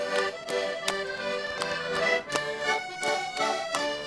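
Concertinas playing a lively traditional Portuguese dance tune as an instrumental break between sung verses, with sharp beats about twice a second.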